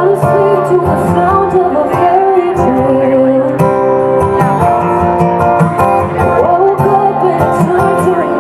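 A woman singing a song live into a microphone, accompanied by a strummed acoustic guitar.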